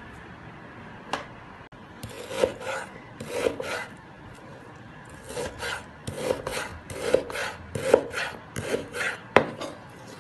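Knife slicing raw meat into cubes on a bamboo cutting board: short sawing strokes of the blade against the wood, in groups about a second apart, with a sharp knock of the knife on the board near the end.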